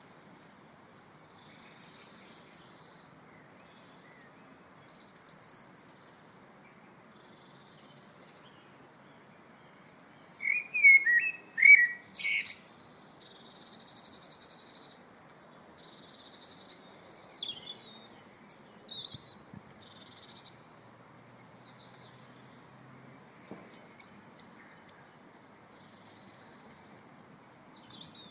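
Woodland birdsong: several birds chirping and whistling over a steady faint hiss, with a loud quick run of chirps a little before halfway through.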